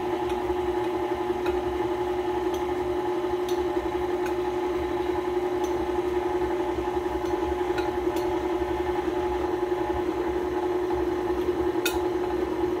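KitchenAid stand mixer's motor running at a steady pitch as it mixes the batter, with a few light clinks of a metal spoon against a glass bowl as flour is spooned in.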